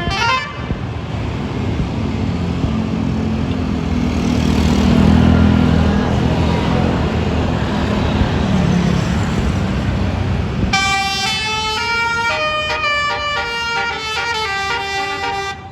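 A bus passes close by with a loud engine rumble that swells and then fades. About two-thirds of the way through, a basuri musical bus horn plays a melody of stepping notes.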